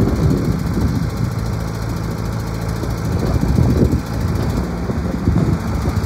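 John Deere 410D backhoe's diesel engine running steadily with a low hum while the backhoe arm is worked by its hydraulics.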